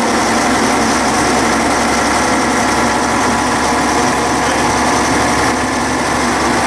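Steady running noise of an old railcar heard from inside its cab while it travels along the line: a constant engine drone mixed with wheel and rail noise.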